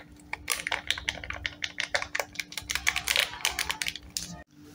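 Foil spice sachet crinkling and crackling as it is squeezed and shaken to tip chaat masala powder into a pot of liquid: a quick, irregular run of crackles that stops short near the end.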